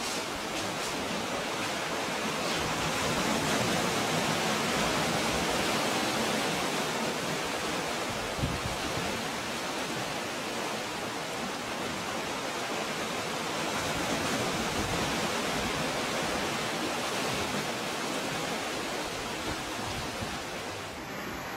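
Steady rush of water running and washing over the rocks and pebbles of a narrow sea cove, swelling slightly a few seconds in.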